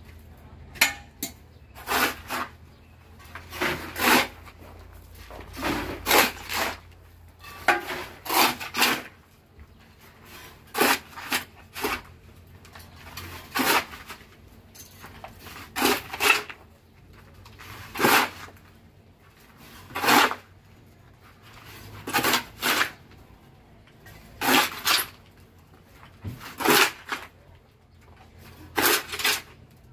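Steel shovel scooping cinder-block mix, each stroke a short rasping scrape, repeated about every two seconds over a faint steady low hum.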